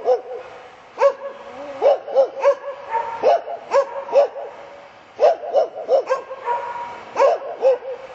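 A dog barking over and over in short bursts of one to three barks, with brief pauses between the bursts.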